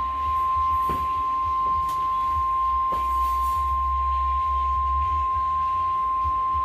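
Weatheradio Canada warning alarm tone: one steady, unbroken 1050 Hz tone held throughout, marking the start of a new severe thunderstorm warning message. A low rumbling hum runs underneath.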